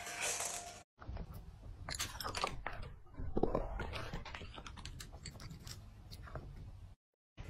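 A cat chewing dry kibble: a run of irregular crisp crunches, broken by a short silent gap about a second in and another near the end.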